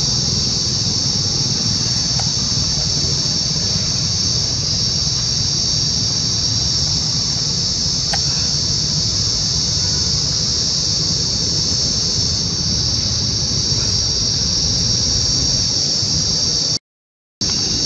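Steady, loud, high-pitched drone of an insect chorus, with a low rumble underneath. The sound breaks off completely for about half a second near the end.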